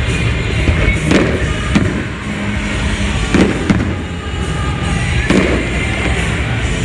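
Fireworks going off in about five sharp bangs, two pairs and then a single one, over loud music.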